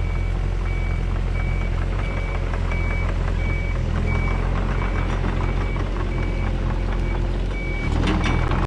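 Mini excavator's engine running steadily as the machine travels on its tracks, with its travel alarm beeping steadily about three times every two seconds. Sharp clanking and rattling near the end.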